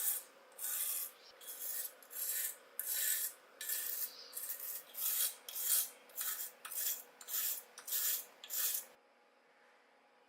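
Hand tool rasping in repeated back-and-forth strokes, about fifteen in all, coming a little faster toward the end before stopping suddenly near the end.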